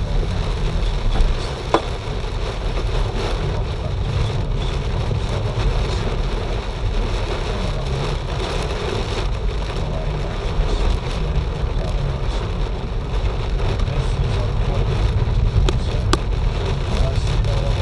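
Hailstorm: hail and rain pelting down in a steady, dense patter, with a few sharper single hits standing out, about two seconds in and again near the end.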